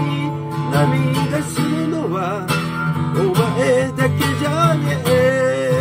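A man singing with a strummed steel-string acoustic guitar, holding a long note near the end.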